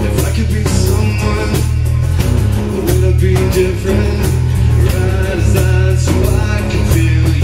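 Live band music: strummed acoustic guitars with a drum kit keeping a steady beat, and a man singing over them.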